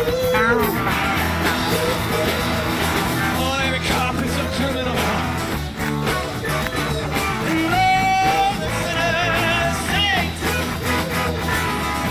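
Live rock band music: a man singing over guitars, his voice climbing to long held notes.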